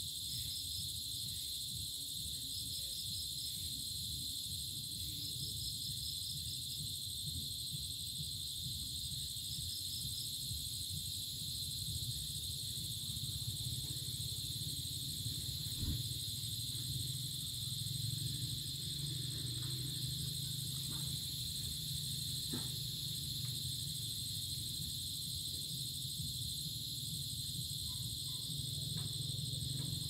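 Insect chorus of crickets and cicadas: a steady shrill high drone with fainter higher bands above it, and a short pulsed chirp repeating a few times in the first ten seconds. A low steady hum runs underneath and grows a little louder after the middle.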